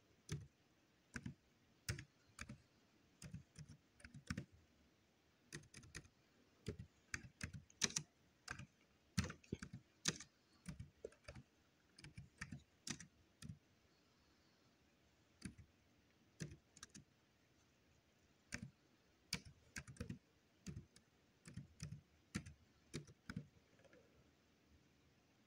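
Laptop keyboard being typed on: quick, irregular key clicks in short bursts, word by word, with a brief pause about halfway through.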